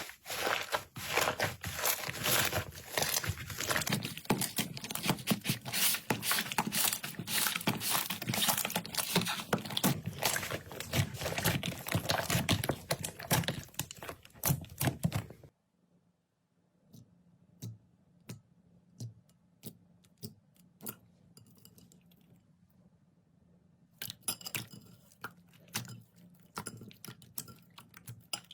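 Slime being squeezed and pressed by hand, giving dense crackling and popping clicks. About halfway through the sound cuts off abruptly to scattered single pops, then the crackling grows dense again near the end.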